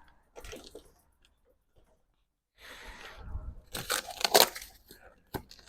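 Packaging on a new bike being handled and pulled away: bursts of rustling and crinkling, with a near-silent pause before the loudest stretch about four seconds in and a single click near the end.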